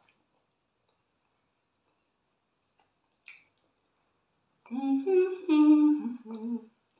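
A person humming a short tune of a few held notes for about two seconds near the end, after several seconds of near silence; a faint click comes a little before the humming.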